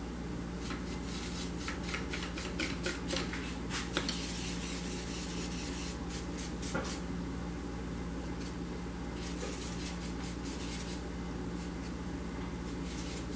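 Paintbrush dabbing and working paint on a plastic palette: clusters of faint scratchy taps and brushing, over a steady low hum.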